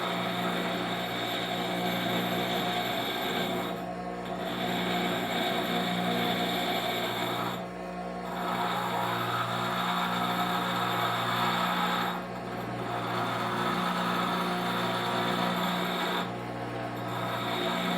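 Grinder running, its 80-grit green wheel grinding the carbide tip of a stump-grinder cutting tooth: a steady motor hum under a rasping grind. The grind drops briefly about every four seconds as one pass ends and the next begins.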